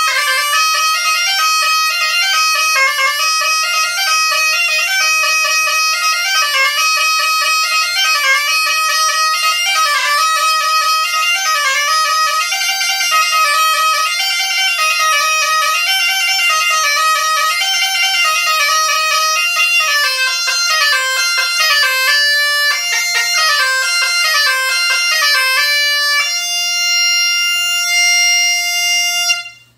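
Chanter of a 3D-printed Great Highland bagpipe playing a slow melody, with the drones not sounding. The tune ends on a long held note that cuts off just before the end.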